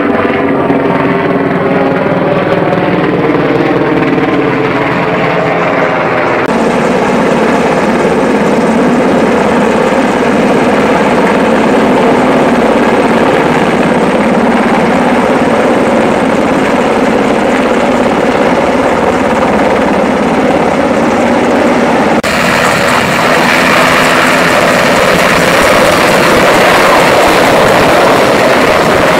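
A Coast Guard MH-60 Jayhawk helicopter flying close by, its rotors and engines loud and steady. The sound shifts abruptly about six seconds in and again near the end.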